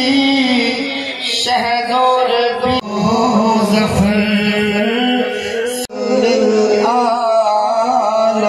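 A song with a singing voice carrying an ornamented, wavering melody over musical accompaniment. It breaks off abruptly and resumes twice, about three and six seconds in.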